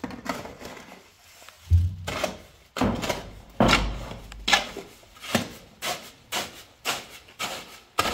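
Steel shovel scooping and scraping sand-and-cement mix in a metal wheelbarrow: a heavy thump, then repeated rough scrapes about one to two a second.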